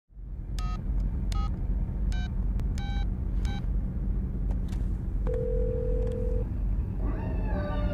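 Mobile phone keypad tones: five short two-note beeps as a number is dialled, then a single steady ringing tone of about a second in the earpiece as the call goes through. A low rumble runs underneath, and music with sliding notes comes in near the end.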